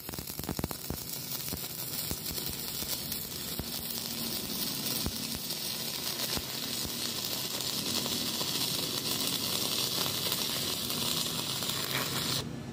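Stick (MMA) welding arc from an iBELL IBL M250-104 inverter welder: it crackles with sharp pops as the arc is struck, then settles into a steady sizzle while the rod burns, and cuts off near the end.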